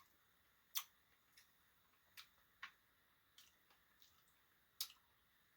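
Near silence with a few sharp, scattered clicks from someone eating a soft-serve ice cream Blizzard with a spoon. The two loudest come about a second in and near the end.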